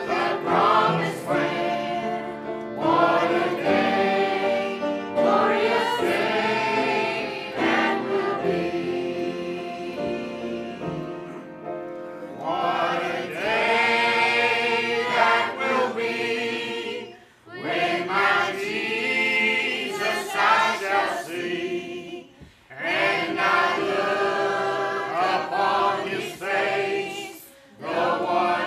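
A choir singing a gospel song, with three short breaks between phrases.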